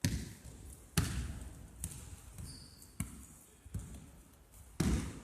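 Basketball dribbled on a sports-hall floor: about six bounces, roughly a second apart, each with a short echo in the hall.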